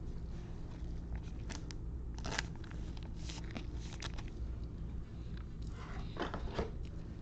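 Baseball trading cards and foil packs being handled: a series of short crinkling, rustling sounds, heaviest about two seconds in and again near the end.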